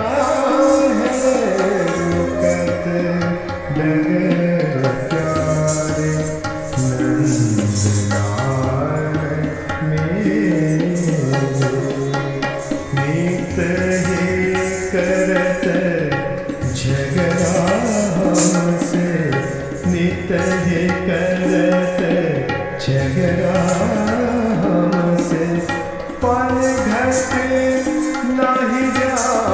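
Hindustani classical accompaniment for Kathak dance: tabla strokes under a continuous, winding melodic line.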